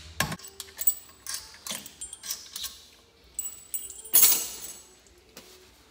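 Light metallic clicks and clinks of loose steel bolts and hand tools being handled on an aluminium motorcycle engine case, with one short, louder rasping burst about four seconds in.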